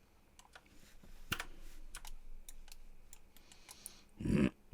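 Computer keyboard typing and mouse clicks, irregular scattered keystrokes. A short vocal sound comes near the end.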